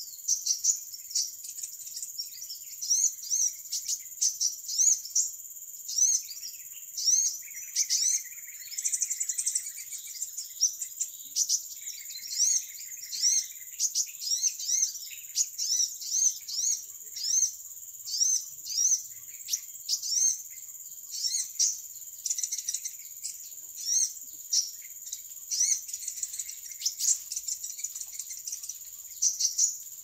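Small birds chirping continuously, short high-pitched chirps repeated several times a second, over a steady high insect drone. A lower chattering trill comes in twice, about eight and twelve seconds in.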